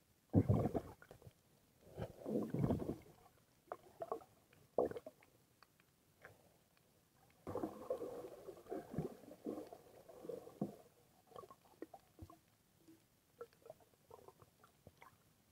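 Water sloshing and splashing in uneven bursts, with a few sharp knocks.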